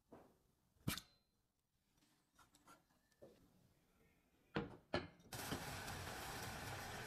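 A sharp knock about a second in and two more knocks just before the middle. Then, from about five seconds in, milk and butter boiling in a stainless steel saucepan make a steady, even sizzling hiss.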